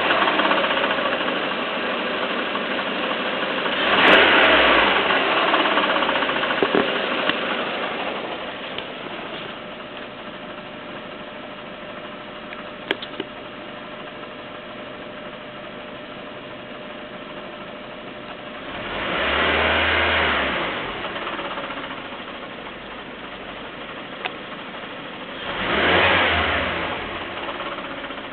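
Peugeot 307's 1.6-litre 16-valve petrol four-cylinder engine idling and blipped three times: briefly about four seconds in, a little longer around twenty seconds in, and again near the end. It is the engine being checked for an odd clacking noise whose cause is unknown.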